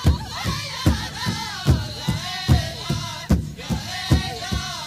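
Background music: a song with sung vocals over a steady drum beat.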